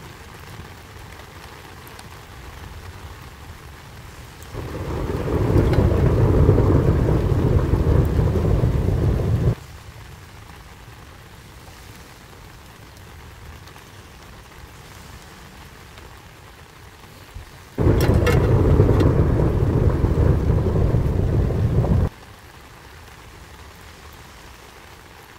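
Steady rain with two loud rolls of thunder. The first swells up about four seconds in; the second starts suddenly with a crack a little past halfway. Each lasts four to five seconds and cuts off suddenly.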